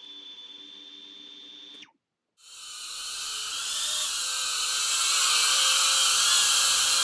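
Diatone Taycan C25 cinewhoop drone's motors and ducted propellers: a steady high whine over a low hum, a brief dropout to silence about two seconds in, then a rushing whir that grows steadily louder.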